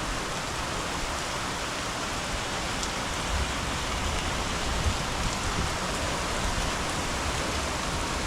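Heavy rain falling steadily, an even rushing hiss of a downpour hitting surfaces.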